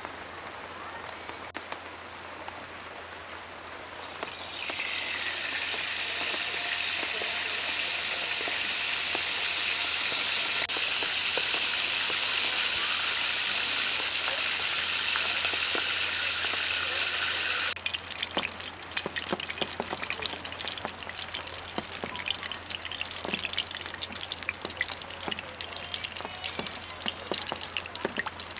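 Food frying in hot oil: a loud, steady sizzle comes up about four seconds in and stops abruptly a little past halfway. A lighter crackle of popping oil follows.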